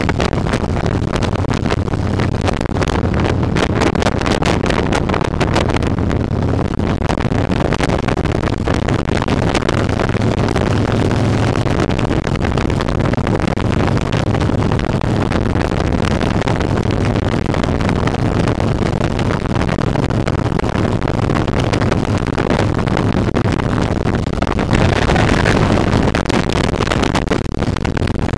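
Cruiser motorcycle engine running at road speed, with wind buffeting on the microphone. It grows louder and brighter near the end as the bike rides into a road tunnel.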